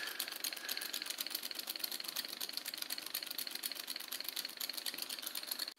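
Homemade two-cylinder solenoid engine running: its 12-volt solenoids pull the pistons while the push rods and roller rockers click in a fast, even rhythm.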